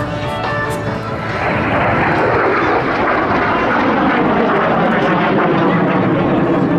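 Jet noise from Blue Impulse Kawasaki T-4 jet trainers flying over, swelling about a second in and staying loud. Show music fades out under it at the start.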